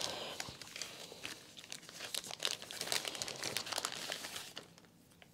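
Soft crinkling and rustling of thin plastic, with many small clicks, as diamond painting supplies are handled; it stops about four and a half seconds in.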